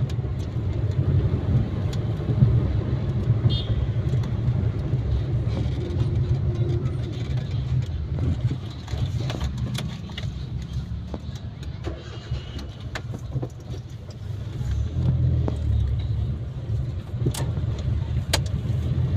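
Maruti WagonR car driving on a road test after clutch repair: a steady low engine and road rumble that eases off in the middle and builds again, with a few sharp clicks.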